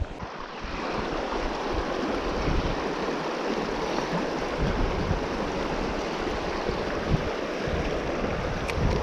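Shallow mountain river rushing steadily over a rocky riffle, louder from about a second in, with wind buffeting the microphone and a single click near the end.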